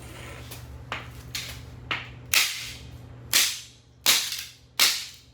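Repeated blows smashing the plastic of a broken VTech CS6649 cordless phone handset. There are a few light knocks, then four hard, sharp bangs under a second apart, each trailing off briefly.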